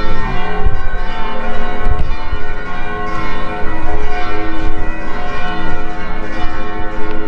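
Church bells ringing, several bells sounding together in a continuous peal.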